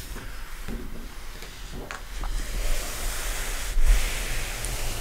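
Page of a large hardback book being turned by hand: paper rubbing and rustling that swells from about two and a half seconds in, with a soft slap as the page lands just before four seconds.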